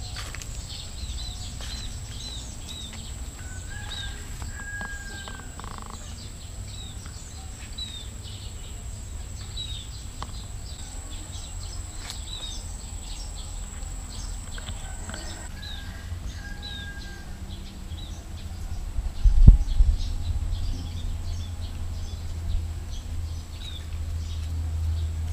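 A bird chirping short high notes about once a second, over a steady high-pitched whine that stops a little past halfway. A low thump, the loudest sound, comes about three-quarters of the way through, followed by a low rumble.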